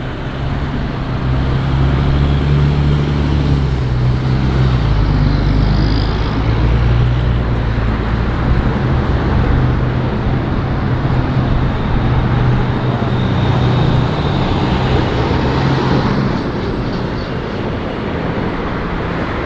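A large road vehicle's engine running close by with a steady low hum, over general street traffic noise. The hum fades out about sixteen seconds in.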